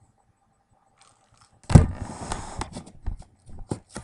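Plastic treat-dispensing ball pushed about by a cat, the dry kibble inside rattling: a sudden loud rattle about halfway in, then a string of sharp clicks and knocks.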